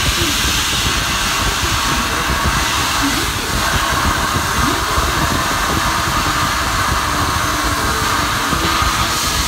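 Blast-cabinet nozzle spraying plastic media at a cast-aluminium Porsche 928 S4 camshaft cover: a steady, loud hiss of compressed air and grit over a low rumble.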